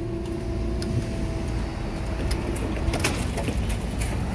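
Level crossing barrier mechanism humming steadily as the barriers finish rising, cutting off about halfway through. After that, footsteps and sharp clicks and knocks over a low traffic rumble as the crossing reopens.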